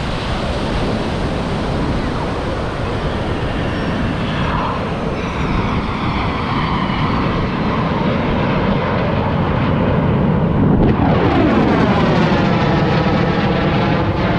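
Jet aircraft flying low over the beach. Its rushing noise builds to a peak about eleven seconds in, then turns into a falling, swirling whoosh as it passes overhead and away.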